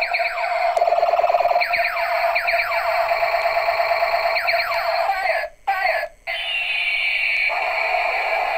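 Battery-operated toy flash gun's electronic sound effects from its small speaker: a steady buzzing tone with bursts of rapidly repeated falling zaps. The sound cuts out twice briefly a little past the middle, then a single slow falling whine follows.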